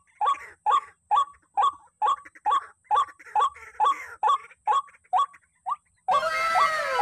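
White-breasted waterhen calling: a loud, pitched note repeated about twice a second. About six seconds in it changes abruptly to a run of falling, overlapping notes.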